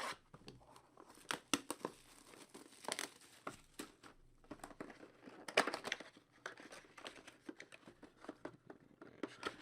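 Plastic wrapping on a box and packs of 2014 Select football cards crinkling and tearing as it is pulled open by hand, in irregular crackles with a louder burst about halfway through.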